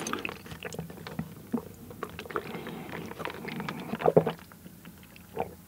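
Slurping brown-sugar bubble tea through a wide straw, then chewing the tapioca pearls with small wet clicks. A short throaty sound about four seconds in is the loudest moment.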